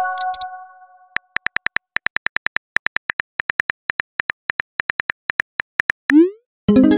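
Texting-app sound effects. A message chime rings out and fades over the first second. Then comes a fast, even run of on-screen keyboard clicks, about five or six a second, as a text is typed. Near the end a quick rising swoosh marks the message being sent, and a bright chime of several notes follows.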